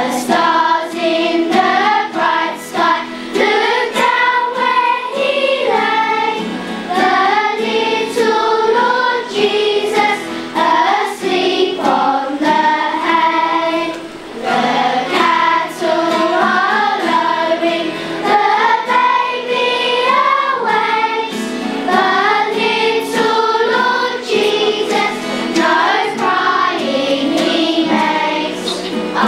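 A children's school choir singing a Christmas carol together.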